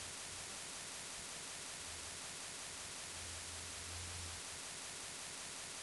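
Steady hiss from the recording with no speech, and a faint low hum that comes and goes twice.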